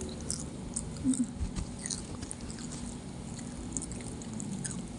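Close-up eating sounds: biting into and chewing fried battered kwek-kwek (quail eggs) and calamares, with small moist clicks and crunches scattered throughout.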